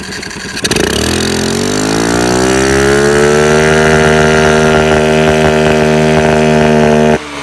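Scooter engine breathing through an aftermarket power (cone) air filter, revved hard: under a second in the throttle opens, the pitch climbs for about two seconds and then holds steady at high revs, and about seven seconds in the throttle is shut and the sound drops suddenly.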